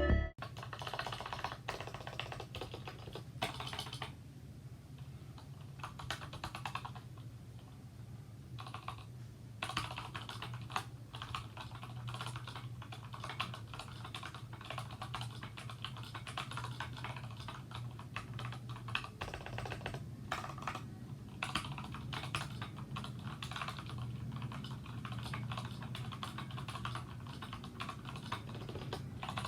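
Typing on a Geek GK61 mechanical keyboard with unlubed Gateron Yellow linear switches and YMDK carbon keycaps: a fast, continuous run of keystroke clacks broken by a few short pauses, over a faint low hum.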